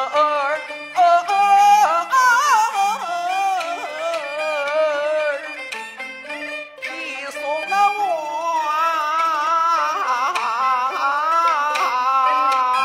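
Male laosheng voice singing a Peking opera fanerhuang aria in long, wavering, sliding notes, accompanied by the jinghu fiddle and a Chinese opera ensemble.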